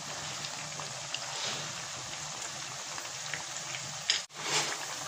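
Sweet potato slices deep-frying in oil in a wok on low heat: a steady sizzle with scattered small pops. About four seconds in the sound cuts out for an instant, then the sizzle comes back louder.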